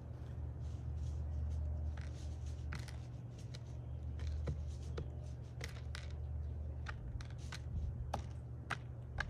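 Mourning dove pecking at seed on a hard feeder tabletop: irregular sharp little clicks and taps, some in quick pairs, over a steady low rumble.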